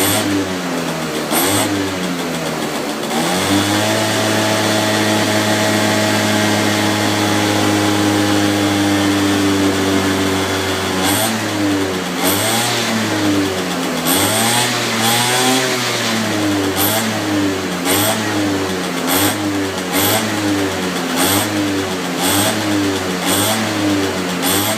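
Suzuki AP50's 50cc two-stroke single-cylinder engine being revved on the stand: it is held at steady high revs for about seven seconds, then blipped up and let fall back over and over, about once a second.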